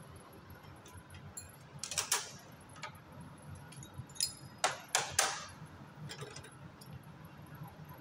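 Metal clicks and clinks from an adjustable spanner working on a brass flare nut as it is tightened onto copper tubing. There is a couple of clinks about 2 seconds in and a quick run of three near the middle.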